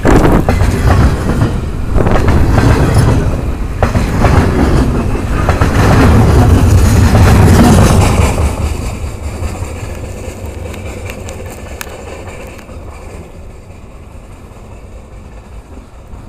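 Loaded freight cars of a long train rolling past, steel wheels clacking over the rail joints. About eight seconds in the rumble begins to die away steadily as the train moves off.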